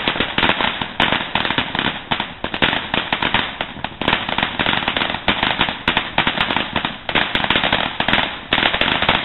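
Ground firework burning and crackling, a dense, rapid stream of small sharp pops that keeps going without a break.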